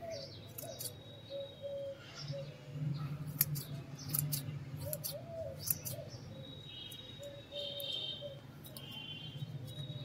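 Small hand scissors snipping plant foliage: a run of sharp snips, irregular, about one a second. Small birds chirp throughout, with trilling calls in the second half.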